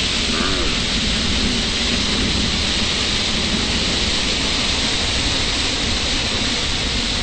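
Water gushing from a fire hydrant broken in a car crash: a steady, loud rushing spray pouring down onto the cars and the flooded pavement.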